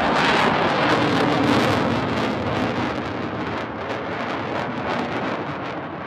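Jet engine noise from a Swiss Air Force F/A-18 Hornet fighter making a low display pass. It is loudest in the first couple of seconds, then slowly fades with a ragged crackle.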